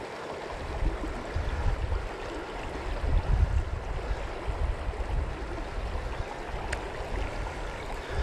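Steady rush of a riffled river flowing over rocks, with an uneven low rumble starting about half a second in, loudest around three seconds.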